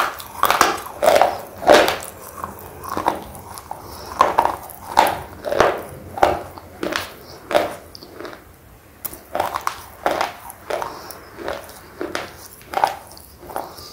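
Close-miked crunching of thick red slate pencil being chewed: a steady run of gritty crunches, about two a second.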